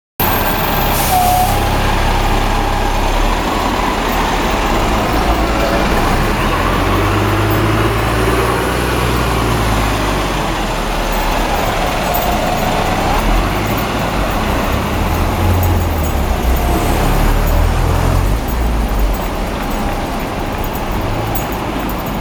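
Steady road traffic noise, with the low rumble of passing cars and heavy vehicles swelling and fading every few seconds.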